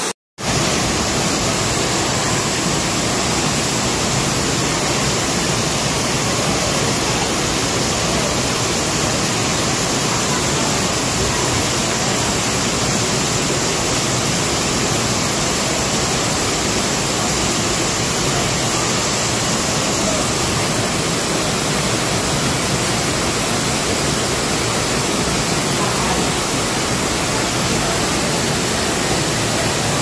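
Waterfall pouring into a rock pool: a loud, steady rush of falling water, after a short dropout at the very start.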